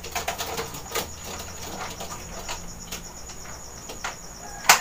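Scratching, clicking and light rattling of a metal racing-pigeon transport box being handled, ending in a sharp knock near the end; crickets chirp steadily behind.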